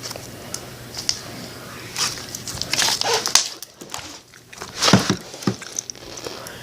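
Clear-glue slime with glitter mixed in, squished and poked by hand, giving irregular wet clicks and small pops.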